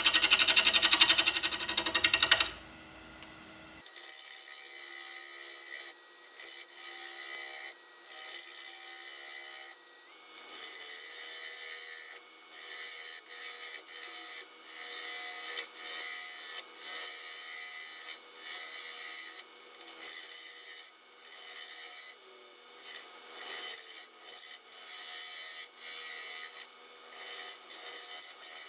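Lathe turning tool cutting a spinning blank of brown mallee burl cast in epoxy resin, throwing off shavings. It opens with a couple of seconds of loud, rapid chattering contact. After a short pause comes a steady run of hissing cuts, each about a second long, one every second and a half or so.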